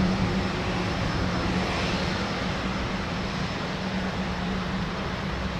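Lockheed C-130H Hercules climbing out after takeoff, its four Allison T56 turboprop engines and propellers giving a steady low drone over a broad roar, gradually fading as it moves away.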